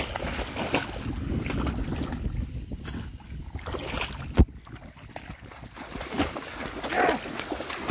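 Feet splashing and wading through shallow water in a flooded rice paddy, with wind on the microphone. A single sharp knock stands out about four and a half seconds in.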